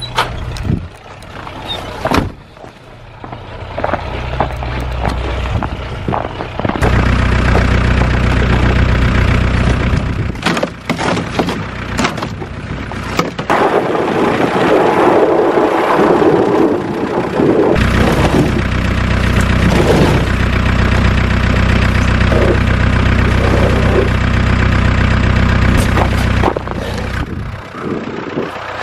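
A vehicle engine running steadily for most of the stretch, fading out near the end.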